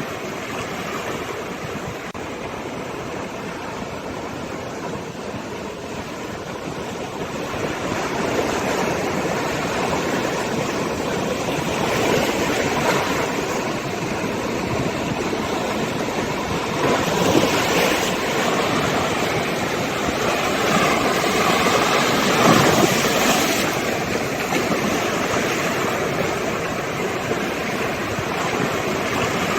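Sea waves surging and washing in, a steady rush that rises and falls in several swells, loudest about 17 and 22 seconds in.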